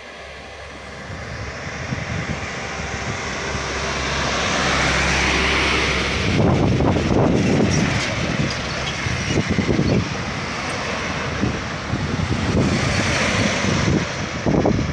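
Diesel trucks labouring uphill at full throttle, their engines getting louder as they approach and loudest as they pass close by one after another from about six seconds in.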